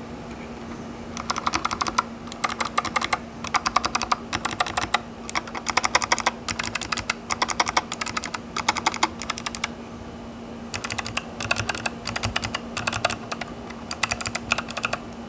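Typing on a mechanical keyboard fitted with GMK Frost Witch keycaps: rapid key clacks in runs of about a second each, with a brief pause about ten seconds in, over a faint steady hum.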